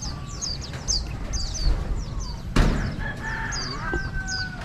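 A rooster crowing, one long call starting about three seconds in, over a steady run of short high chirps from small birds. A sharp knock comes just before the crow.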